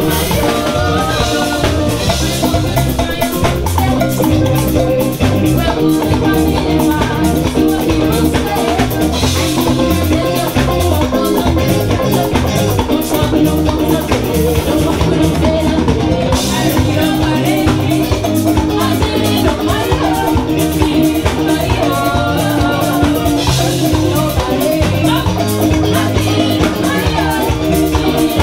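Live school pop band playing an upbeat song with drum kit, congas, electric guitar and keyboards, a singer on microphone and a brass section of trumpets and trombone, amplified through the stage PA.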